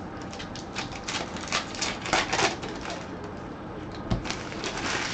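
Gloved hands handling and shifting sealed trading-card boxes: a run of light clicks, taps and cardboard rustles, with a thump about four seconds in as a box is set down.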